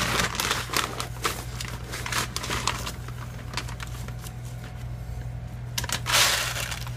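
Dry rice poured from a plastic bag into a metal roasting pan of frozen vegetables: crinkling of the bag and grains pattering, with a loud rush of pouring about six seconds in.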